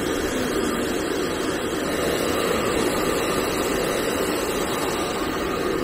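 Handheld hair dryer running steadily, an even rush of fan and blown air, drying a towel-wrapped French bulldog after a bath.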